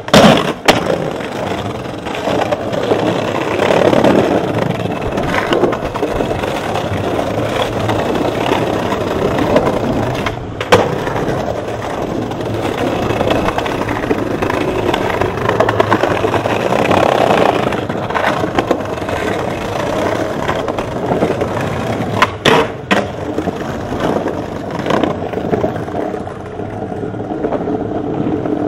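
Skateboard wheels rolling over brick paving, a steady rough rumble. Sharp clacks of the board striking the ground come just after the start, about a third of the way in, and twice in quick succession about three quarters through.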